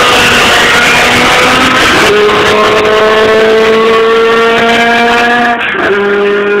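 Open sports-prototype race car accelerating hard away, its engine note climbing through the gears. The pitch drops back at upshifts about two seconds in and again near the end.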